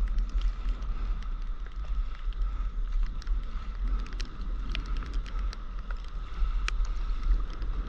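Wind buffeting the microphone of a camera held low over the sea, a gusting low rumble, with many irregular sharp ticks and a faint steady high hum.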